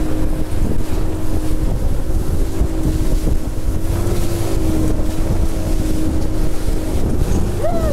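A boat running at speed through rough water: a steady engine drone under heavy wind buffeting the microphone and the rumble of the hull in big waves.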